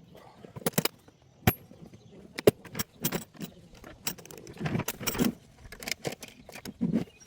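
Metal hand tools clinking and clattering: an irregular run of sharp clicks and knocks, the loudest about one and a half and two and a half seconds in.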